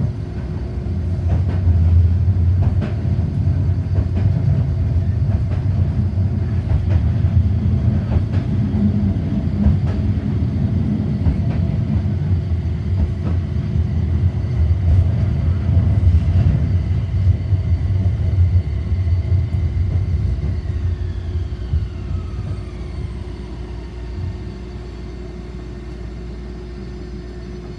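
Inside a Toyama Chihō Railway city tram on the move: the low rumble of wheels and running gear, under a steady hum. About twenty seconds in, a motor whine falls in pitch and the rumble dies away as the tram slows.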